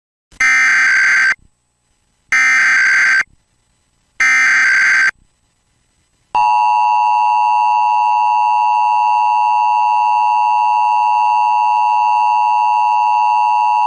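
Emergency Alert System broadcast opening: three short bursts of SAME header data tones, each about a second long. Then, about six seconds in, the steady two-tone EAS attention signal starts and holds.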